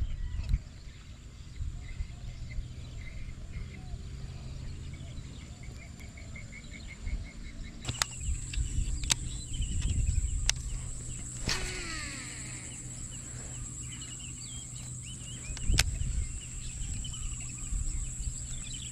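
Open-air pond-side ambience with wind rumbling on the microphone, bird chirps and a steady high-pitched hum. A few sharp clicks come from a Shimano Curado MGL baitcasting reel, and about eleven seconds in there is a falling whir as the reel's spool spins out and slows during a cast.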